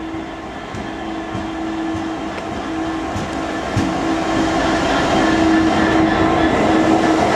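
Class 66 diesel-electric locomotive running light engine past at close range, its EMD two-stroke V12 diesel running with a steady drone that grows louder as the cab draws level, then holds. There is a sharp click about halfway through.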